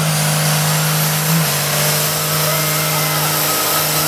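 Lifted Ford mud truck's diesel engine held at high revs under full load, pulling against another truck in a tug-of-war. A steady, high engine note that dips slightly about a second and a half in.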